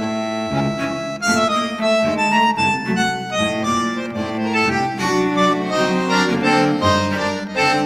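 Background music: instrumental tune with a reedy accordion-like lead over sustained bass notes.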